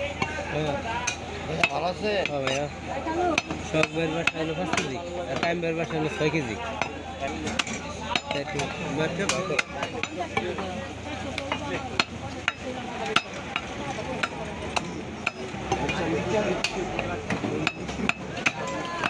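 Cleaver chopping beef on a wooden log chopping block: repeated sharp chops at an irregular pace.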